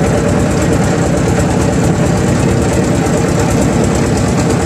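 Engine of a wooden river motor boat running steadily, with a fast, even low throb.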